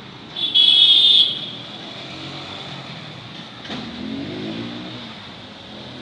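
A short, loud, high-pitched tone about half a second in, lasting under a second, over steady background noise. Fainter low pitched sounds follow in the second half.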